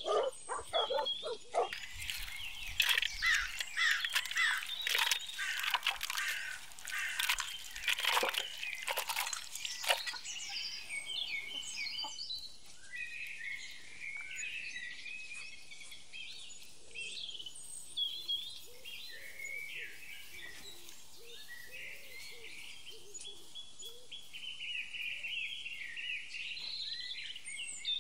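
Small songbirds chirping on and off throughout. Over the first ten seconds their calls are mixed with a quick run of sharp knocks and crunches from food being prepared, such as a knife cutting peppers on a wooden board.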